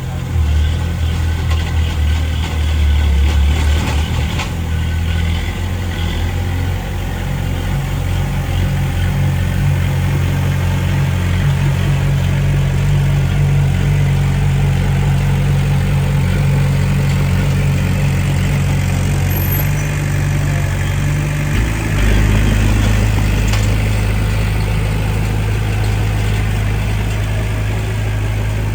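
Diesel engine of heavy earthmoving machinery running steadily. Its note changes just after the start and again about three-quarters of the way through, as the throttle or load changes.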